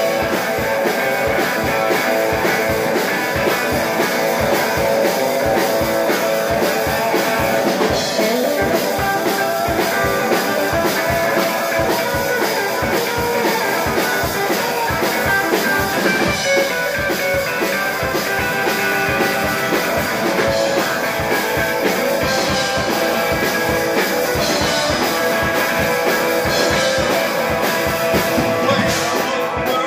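Live rock music: an electric guitar through an amplifier played over a drum kit keeping a steady, fast beat.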